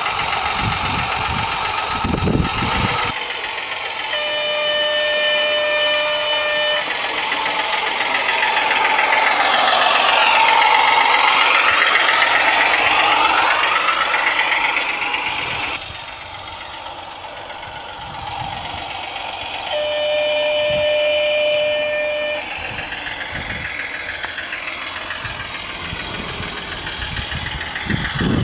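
Simulated diesel engine sound played from the on-board sound card speaker of a radio-controlled G-scale Goose railcar as it runs along the track, with its pitch sliding up and down and loudest in the middle. The model's horn sounds twice, each blast about two and a half seconds long, near the start and again past the middle.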